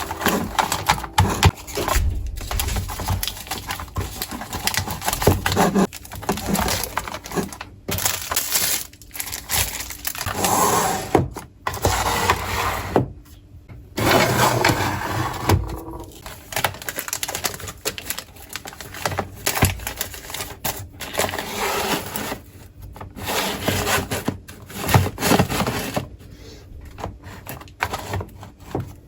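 Kitchen storage containers and food packaging being handled: repeated clicks, knocks and scrapes of containers and lids, with bursts of rustling.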